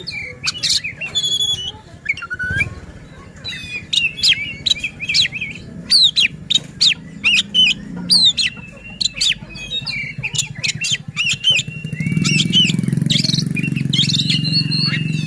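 Oriental magpie-robin (kacer) singing, a busy run of sharp chirps, clear whistles and quick downward-sweeping notes. A low background rumble comes in about twelve seconds in.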